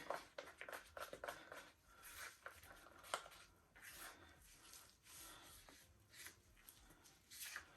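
Faint scraping and light clicks of a comb dipping into and scooping relaxer cream, with one sharper click about three seconds in.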